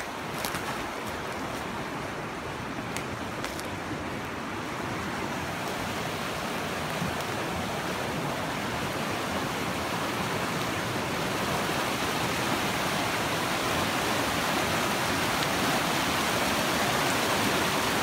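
Fast mountain stream rushing over rocks, a steady wash of water that grows louder and fuller as the recorder comes up to the bank.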